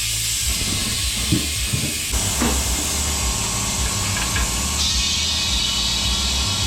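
Compressed air hissing steadily over a low mechanical hum in a tyre repair shop, the hiss growing brighter about two seconds in and again near five seconds.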